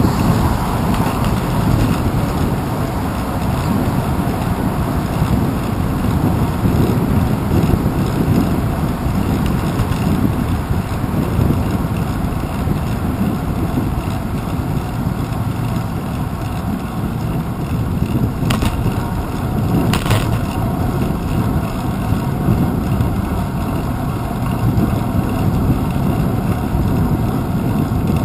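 Steady wind and road rumble from a bicycle riding along a paved path, picked up by a handlebar-mounted GoPro Hero 2, with two brief knocks about two-thirds of the way through.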